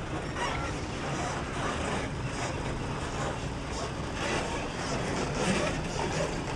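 Heavy truck diesel engine idling steadily, with faint indistinct voices.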